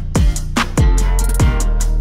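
Background music with a steady drum beat: deep kick drum, bass line and cymbal hits.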